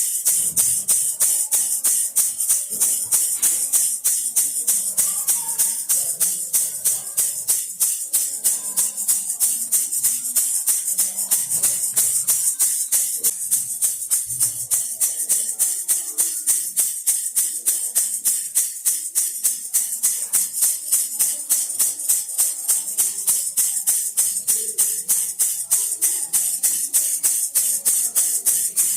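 Baby rattle shaken steadily in an even rhythm, about three to four shakes a second, each shake a bright, hissy rattle of the beads inside.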